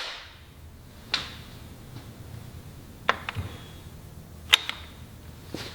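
Five short sharp clicks and knocks, spaced irregularly, over a faint low hum: garage work on an engine being set onto an engine stand.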